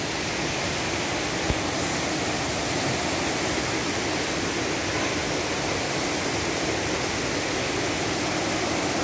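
Shallow rocky river rushing over boulders and rapids: a steady, even hiss of water.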